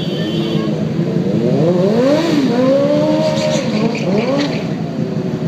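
Motorcycle engines revved several times, their pitch climbing and falling in quick blips over the steady running of other idling bikes.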